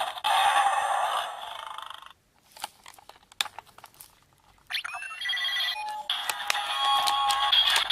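Electronic sound effects from the Zyuoh Changer Final toy's built-in speaker. A sound plays for about the first two seconds, then there are a few plastic clicks of buttons being worked. A new run of electronic beeps and chiming tones starts just before the five-second mark.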